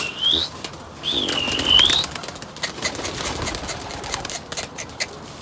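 Domestic pigeons being flown: a flurry of wing claps and flapping from about two and a half seconds in, with low cooing, after two swooping whistles in the first two seconds.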